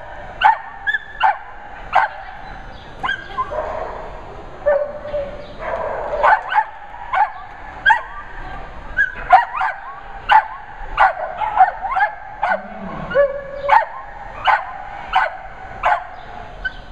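A dog barking over and over in short, sharp, high barks, about one to two a second, some coming in quick pairs.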